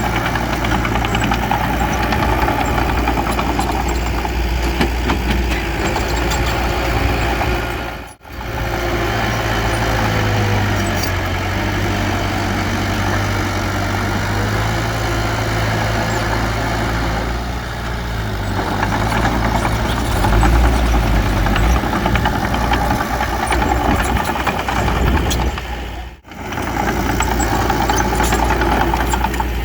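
Heavy earthmoving machine's diesel engine running steadily with a low hum. The sound dips out briefly twice, about a third of the way in and near the end.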